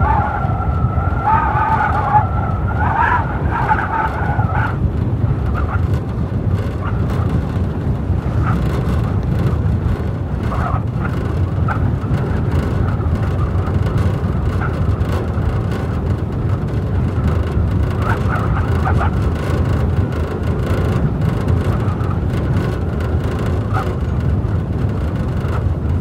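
Blizzard wind blowing hard and steadily, a deep rumble of gusts with a hiss of driven snow. Over the first few seconds a wavering howl in two pitches rides on top, fading out about five seconds in.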